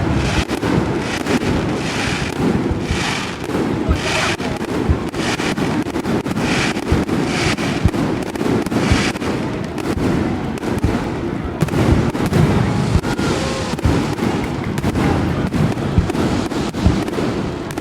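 Fireworks display: repeated sharp bangs of shells bursting, with several stretches of crackling in the first half, over a steady low background rumble.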